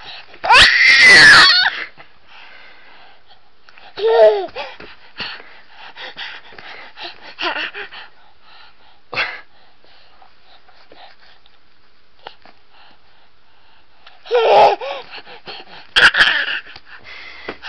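A baby's excited, high-pitched screaming: a long loud shriek about a second in, a shorter squeal a few seconds later and two more near the end, with short breathy sounds between and a quieter spell in the middle.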